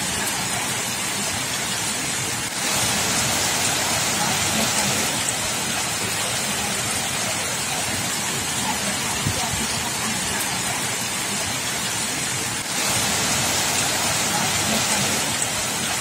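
Torrential rain with floodwater running across a flooded paved courtyard, a dense steady hiss that jumps louder about two and a half seconds in.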